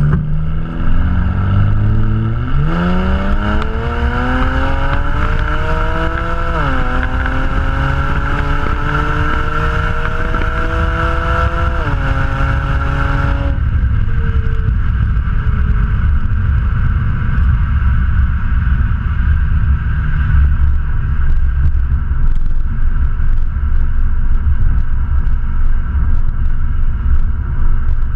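BMW 335is's twin-turbo N54 inline-six on its stock exhaust, accelerating hard through the gears. The engine note climbs, falls abruptly at an upshift about six and a half seconds in and again about twelve seconds in, then the throttle closes about thirteen and a half seconds in and a rushing noise heard over the engine under throttle cuts off. After that the car cruises with a steady low drone and rumble, heard from a camera mounted outside on the car body.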